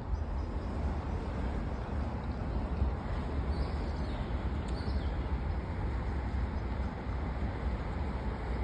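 Wind buffeting the microphone as a steady low rumble over an outdoor hiss, with a few faint bird chirps about halfway through.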